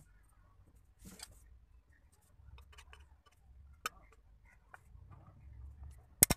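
Light clicks and scratches as thin aluminium sheet and a steel awl are handled and the awl point touches the metal. Near the end a rapid run of sharp clicks starts.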